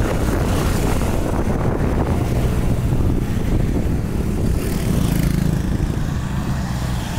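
Motorcycle engine running steadily while riding uphill, with road noise; the engine note swells briefly about five seconds in.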